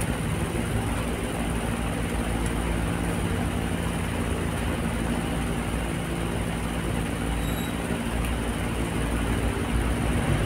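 Steady mechanical droning background noise with a constant low hum and no distinct separate sounds.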